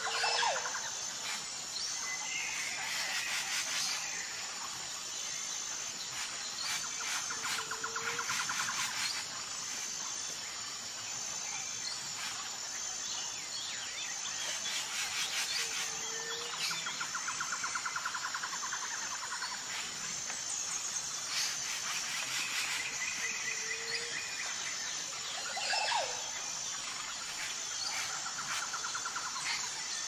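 Birdsong ambience: trilled calls and short whistled notes that come again every seven or eight seconds, over a steady, pulsing high-pitched insect chirring.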